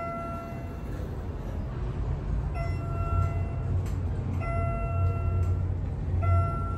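An automated airport people-mover train running, a steady low rumble, with a repeated electronic tone about a second long sounding roughly every two seconds.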